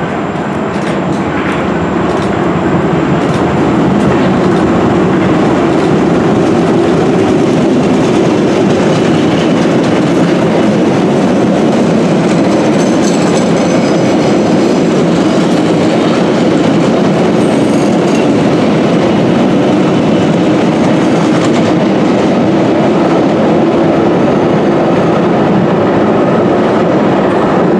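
London Underground 1962 Stock rail adhesion train running through the station on the near track: a loud, steady rumble of wheels on rail that builds over the first few seconds and then holds, with a brief faint high wheel squeal about halfway through.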